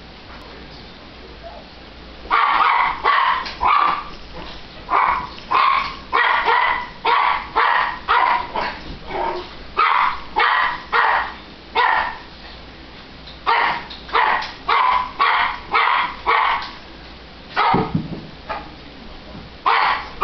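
Small Italian greyhound barking over and over: a fast run of short, high-pitched barks that starts about two seconds in and keeps going, with brief pauses twice.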